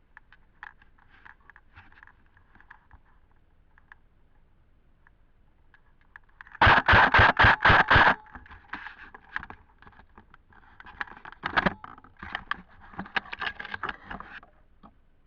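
Airsoft gun firing a quick string of about eight shots in a second and a half, followed by fainter, irregular shots and clicks.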